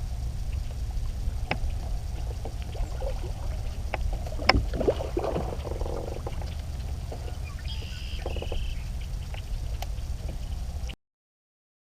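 Kayak on the water: a steady low rumble with scattered knocks, the loudest about halfway through. The sound cuts off abruptly about a second before the end.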